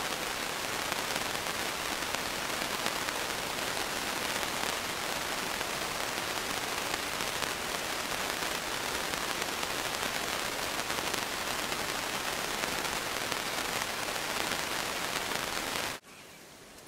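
A steady, dense crackling hiss at an even level, cutting off suddenly about sixteen seconds in.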